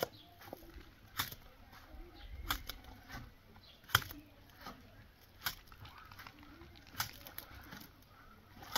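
Sharp knocks, a strong one about every second and a half, with fainter taps between.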